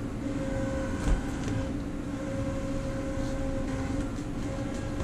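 Steady hum of a running machine, holding a few even tones over a low rumble, with one faint click about a second in.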